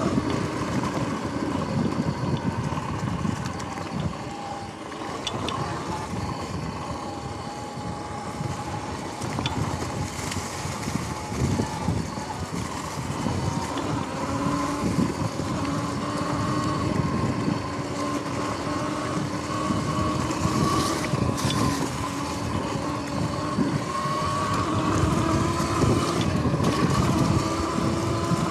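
Sur-Ron X electric dirt bike being ridden: the motor and drive whine, dipping in pitch about four seconds in and climbing near the end as speed changes, over a continuous rough rumble.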